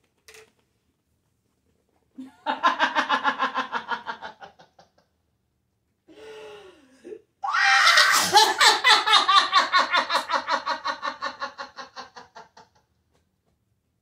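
Someone laughing hard in two long bouts, the second louder and longer, with a short rising-and-falling vocal sound between them.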